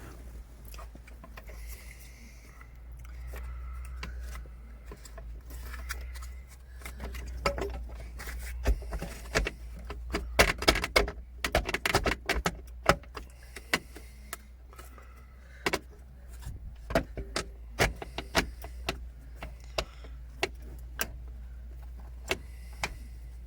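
Irregular metallic clinks and knocks as the short shifter is worked down over its mounting bolts, catching on them, with a steady low hum underneath.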